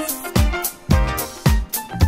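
Background music with a steady drum beat, about two beats a second, and instruments playing over it.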